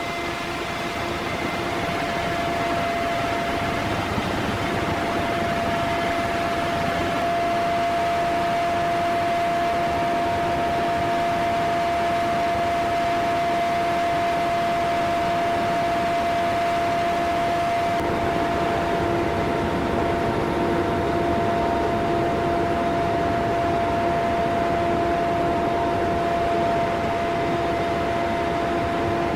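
Aircraft in flight: steady engine and airframe noise with a constant tone over it that holds unchanged throughout.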